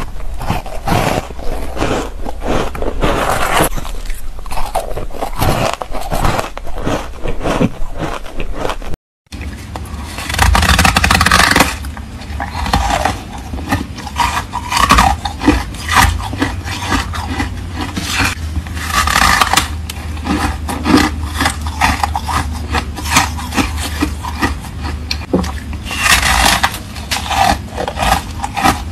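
Close-miked crunching and chewing of ice: first matcha-dusted shaved ice eaten off a spoon, then, after a brief dead gap about nine seconds in, bites crunched off a frozen ice block.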